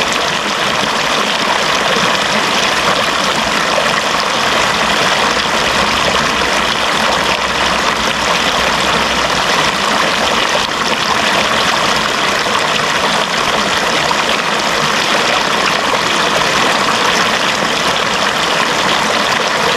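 Running water, a steady even rush with no changes.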